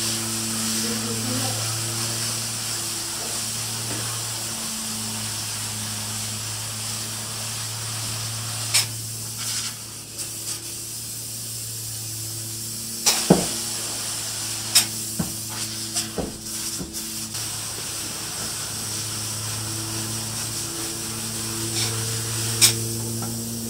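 Spray foam insulation gun hissing steadily as the foam is sprayed, over a steady low hum. The hiss eases off for a few seconds partway through, and there are several sharp clicks.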